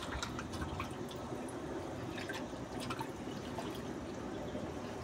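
Hands swishing and squeezing papaya leaves in soaking water, giving irregular small splashes and drips.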